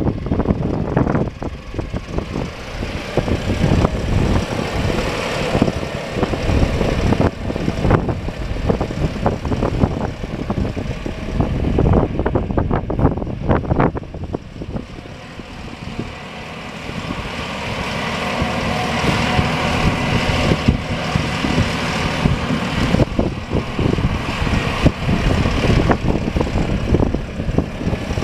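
Mahindra 6075 MFWD tractor's diesel engine running as the tractor drives, with an uneven low rumble through the first half. From about halfway on, the engine note is steadier with a faint whine above it.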